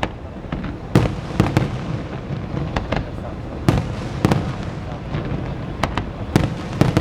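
Aerial fireworks display: shells bursting with sharp bangs every second or so at irregular intervals, over continuous crackling and rumbling.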